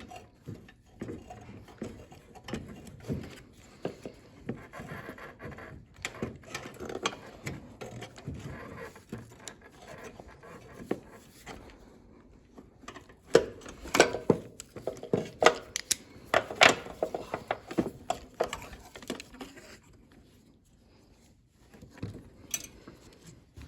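Hand tools and metal parts clicking, knocking and rattling as a carburetor is worked off a lawnmower engine, with a louder run of sharp knocks about halfway through.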